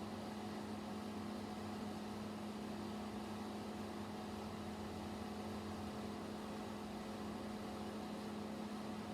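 Steady low hum with a strong single drone and a faint hiss, unchanging throughout, like a fan or appliance running in the room.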